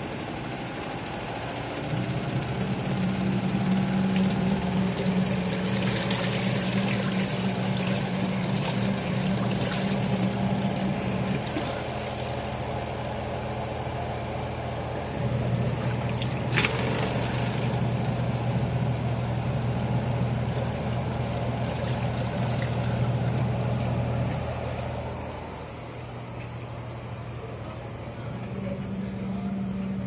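Twin-tub washing machine running, its motor humming and shifting pitch every several seconds while water churns and splashes in the wash tub. Water pours and drips as soaked T-shirts are lifted out by hand, with one sharp click partway through.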